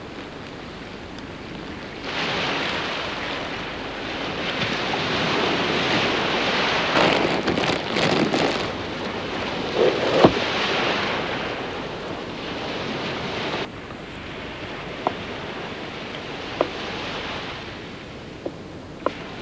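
A loud rushing noise like strong wind starts suddenly about two seconds in, swells, and cuts off abruptly past the middle. A few short, sharp clicks follow near the end.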